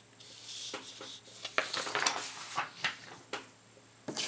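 Sheets of paper being handled and slid over one another, a series of short rustles and scrapes.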